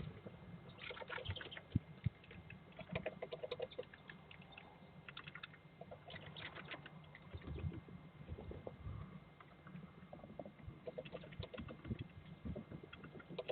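Great spotted woodpecker pecking at a peanut wedged in tree bark: quick taps in irregular bursts with short pauses between.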